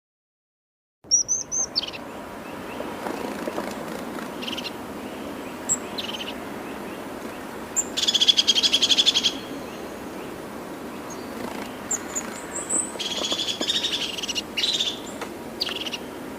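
Songbirds calling after about a second of silence: a quick run of high chirps, then short buzzy trills over a steady background hiss, the loudest trill about eight seconds in and another around thirteen seconds.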